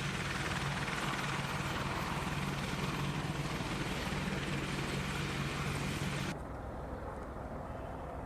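AH-64 Apache attack helicopter running, a loud, steady rushing noise over a low hum. About six seconds in it cuts off abruptly, leaving a quieter low rumble.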